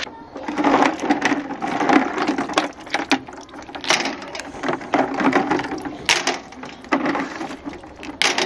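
Walnuts in their shells handled in a metal basin of water: irregular clicks and knocks of hard shells against each other and the basin.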